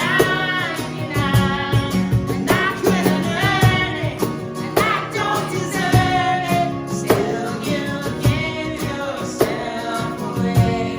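A worship band playing a contemporary Christian worship song live, with singing over instrumental accompaniment and a steady beat.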